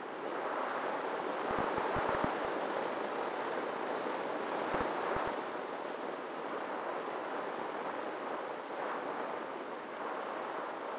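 Airflow rushing over the microphone of a model FPV plane's onboard camera during a low landing approach: a steady hiss with a few low buffeting thumps about two seconds and five seconds in.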